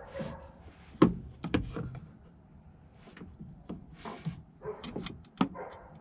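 Cutters snipping off a power steering hose clamp and hose, with tools clicking against metal: a string of sharp snaps and clacks, the loudest about a second in and another near the end, with rustling between.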